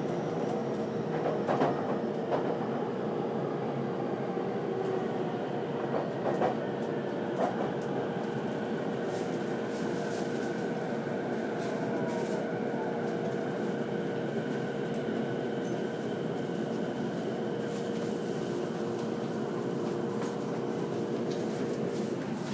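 Chuo Line rapid electric commuter train heard from inside the car: steady running noise with a held motor hum. A few sharp clicks come over the first several seconds, and a faint whine falls in pitch midway as the train slows into the station.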